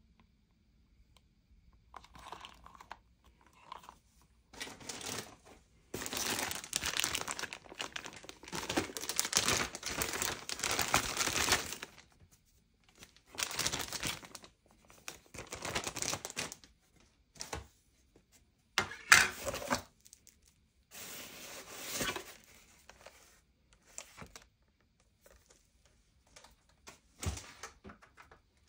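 Irregular bursts of crinkling and rustling, with one sharp crack partway through.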